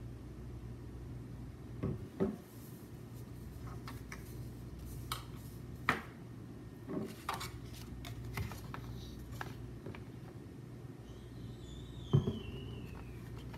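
Scattered clicks and light knocks of a glass perfume bottle and paper cards being handled and set down on a hard tabletop, the sharpest knock about twelve seconds in, over a steady low hum.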